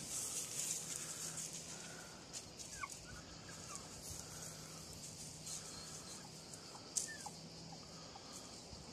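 Faint outdoor ambience with a few short bird calls and light rustling in dry leaves and grass under a steady high hiss.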